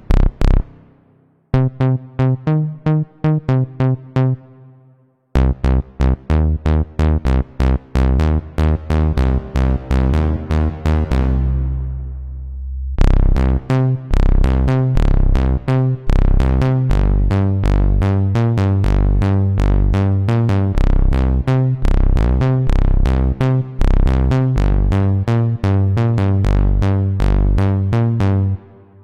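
Waldorf Pulse 2 monophonic analog synthesizer playing bass presets: fast runs of short, punchy pitched bass notes, broken by two brief pauses early on as patches change, with one held note about eleven seconds in before a dense, quick run that stops just before the end.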